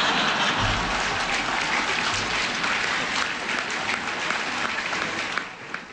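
Large audience applauding, dying down near the end.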